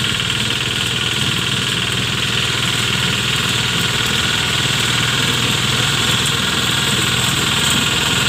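Small Bullet tractor's engine running steadily as it drives a soybean reaper through the standing crop.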